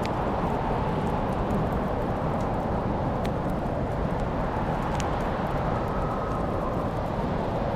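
Fire burning in a fireplace: a steady low rumble with scattered sharp crackles and pops, the sharpest about five seconds in.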